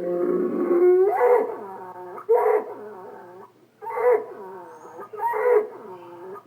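Vocal sound effects of Otto, the animated bull from Garfield (2024): one long call, then four shorter whining calls that bend up and down in pitch.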